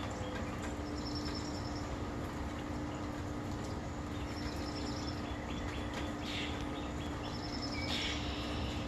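Small songbird calling outdoors: a short, high, quick trill repeated about every three seconds, over a steady background hum.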